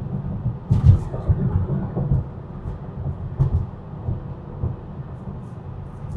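Road and tyre noise inside a Tesla's cabin at about 50 mph: a steady low rumble with uneven thumps, and two sharp clicks, about a second in and past the middle.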